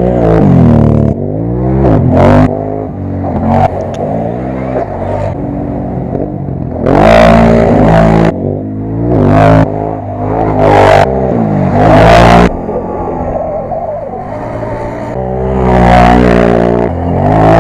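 Racing quad bikes (ATVs) revving hard and passing close one after another, the engine pitch climbing under throttle and dropping between gears. The passes are loudest about two, seven, nine and a half, eleven, twelve and sixteen seconds in.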